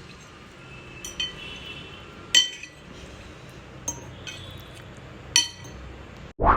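Dishes and utensils clinking: four sharp clinks over a quiet background, two of them ringing briefly, then a dull thump near the end.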